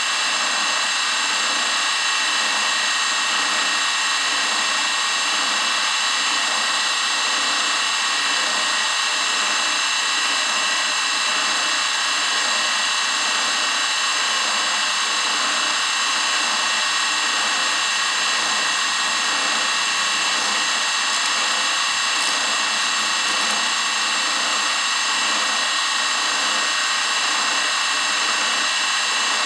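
Grizzly G0704 benchtop milling machine running its spindle steadily with a steady high whine, while a 1/16-inch drill bit side-cuts a small part a little at a time.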